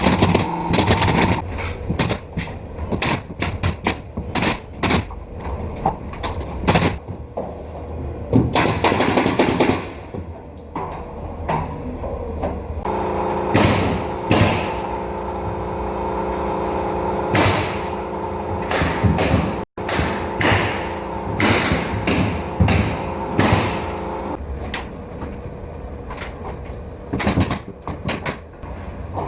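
Repeated sharp shots of a pneumatic nail gun fastening ceiling and molding work, some in quick runs and some spaced out. A steady machine hum runs under them for about ten seconds in the middle.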